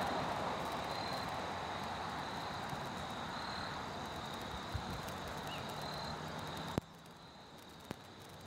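Outdoor ambience of insects trilling steadily on one high note that swells every two to three seconds, over a distant vehicle noise that slowly fades. About seven seconds in, the background noise drops off abruptly with a click, and a second click follows a second later.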